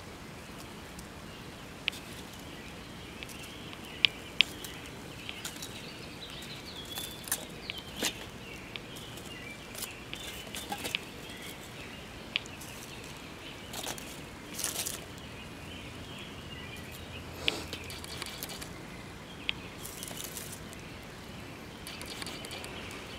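Whole Vidalia onions sizzling directly on hot charcoal, with scattered sharp pops and crackles over a steady low hiss.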